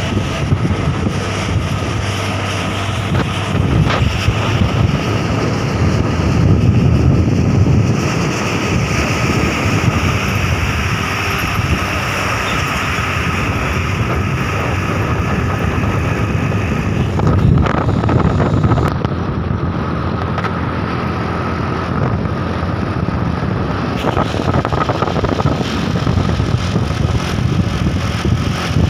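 Truck engine running steadily with road noise, and wind buffeting the microphone.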